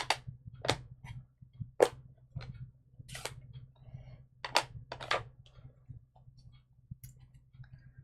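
Sharp plastic clicks and snaps, with a crinkle a little after three seconds in, as new stamp ink pads are unwrapped and opened: about seven clicks spread unevenly over the first five seconds, over a steady low hum.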